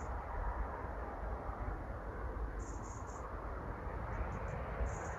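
Lawn mower running steadily, picking up leaves and debris from the grass. A few short high chirps come and go over it.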